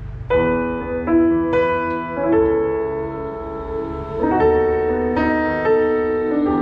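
Roland HP508 digital piano playing a slow passage in chords, new notes struck every half second to a second, with sustained notes ringing between them.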